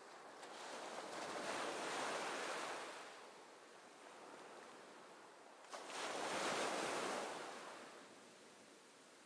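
Sea waves washing in twice, each surge of surf swelling up and fading away over about two seconds, the second one arriving more suddenly.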